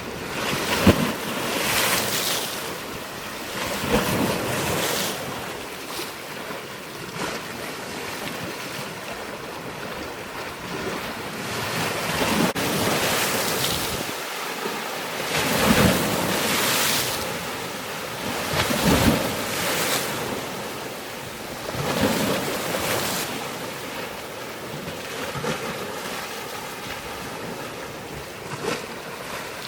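Water washing in repeated surges every two to three seconds, like waves, over a steady rush of wind on the microphone.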